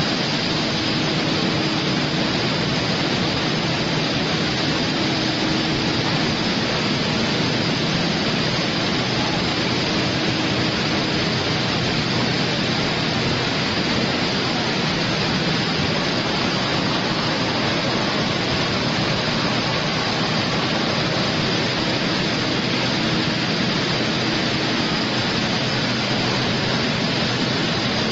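Steel mill machinery running: a loud, steady, even hiss with faint low hums that come and go.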